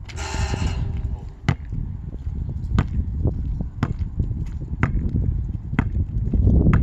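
A basketball hits the metal hoop, and the rim rings briefly. The ball then bounces on asphalt about once a second as it is dribbled.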